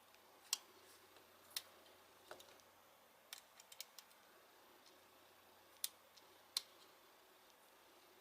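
Faint, scattered small clicks and taps, about eight in all: a bent paper-clip hook working the carbon-brush spring inside an opened angle grinder.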